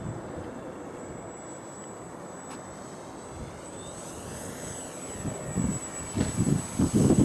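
Distant electric motor and propeller of a ParkZone F4U Corsair RC plane droning in flight, its pitch rising and falling about halfway through. Gusts of wind buffet the microphone, growing louder toward the end.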